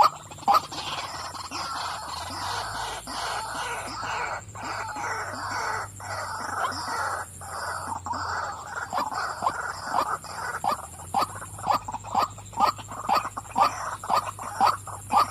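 Female white-breasted waterhen calling: a dense run of harsh croaking notes that breaks up, about two-thirds of the way in, into separate kwak notes repeated about two or three times a second.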